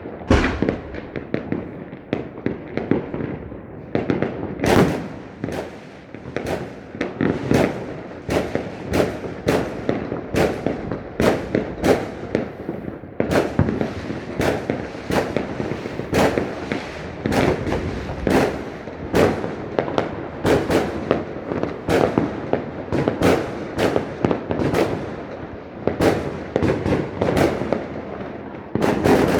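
Fireworks display: shells bursting one after another in a continuous barrage, about one or two bangs a second, each with an echoing tail.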